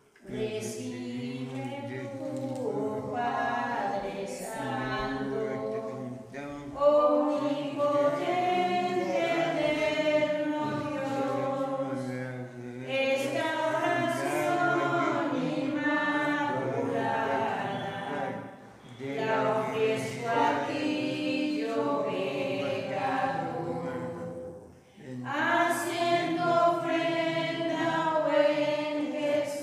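A group of voices singing a hymn together in phrases about six seconds long, with short pauses for breath between them.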